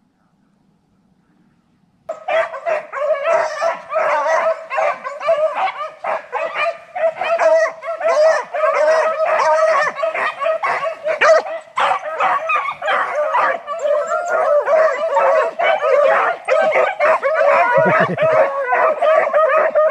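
A pack of beagles in full cry while running a rabbit: several hounds baying and barking over one another without a pause. The pack breaks in suddenly about two seconds in.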